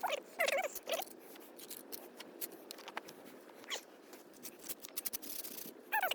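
A cat meowing in short calls, two close together near the start, a faint one later and another at the very end, over a patter of light scrapes and clicks.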